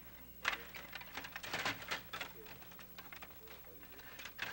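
Rapid clicking and clattering of a Stiga table hockey game in play: the metal control rods are pushed and twisted, and the plastic players strike the puck. The clicks come thickest from about half a second to two and a half seconds in, then thin out.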